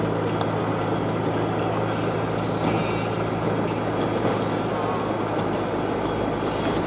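Vehicle engine running steadily with tyre and road noise while driving over a snow-covered road, heard from inside the cab.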